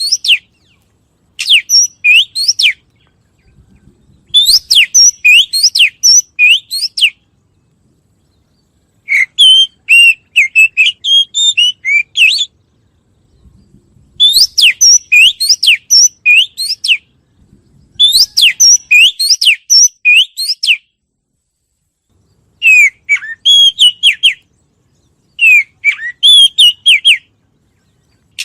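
A bird singing in short bursts of rapid, rising whistled notes, about eight phrases each a second or two long, with pauses of one to two seconds between them.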